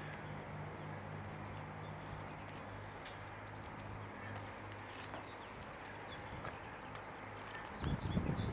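Avro Lancaster's four Rolls-Royce Merlin engines passing at a distance, a steady low drone. Near the end a louder low buffeting rumble comes in.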